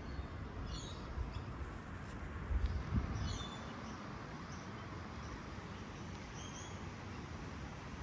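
Outdoor ambience with a few short, high bird chirps scattered through it, and a brief low rumble about two and a half to three seconds in.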